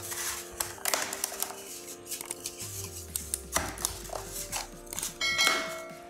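Background music, with a few sharp clicks from the plastic laptop charger case being handled and pressed shut. A bell chime rings near the end.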